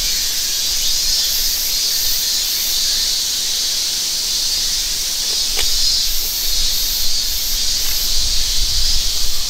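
Loud, steady insect chorus of cicadas in summer woodland, with a higher pulsing note that comes and goes at two to three pulses a second. A single small click sounds about halfway through.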